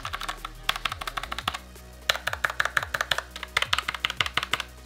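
Fast typing on the mechanical key switches of a Logitech MX Mechanical Mini keyboard: rapid runs of crisp key clicks, pausing briefly twice.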